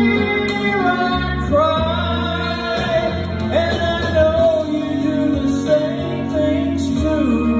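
Man singing a slow country ballad into a microphone over a recorded backing track, holding and gliding between long notes.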